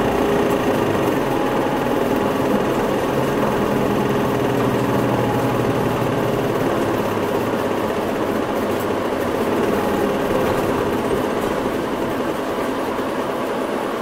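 Interior running sound of a Hino Rainbow mid-size non-step bus: the diesel engine's steady drone under a constant hum and rush of noise, the low engine note easing off about halfway through.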